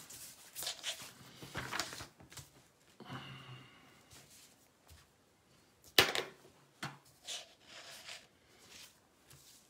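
Scattered small knocks, clicks and rustles of handling close to the microphone, with one sharper knock about six seconds in.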